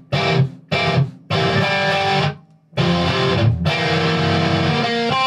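Ibanez JEM 70V electric guitar playing lead lines: short phrases cut off by brief silences, then continuous playing from just under three seconds in.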